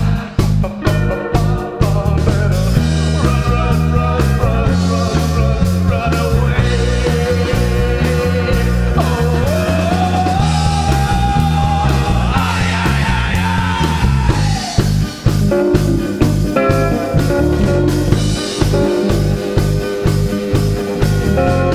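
Rock band playing live: electric guitars, electric bass and a drum kit keeping a steady beat, with a man singing. A held note slides upward about halfway through.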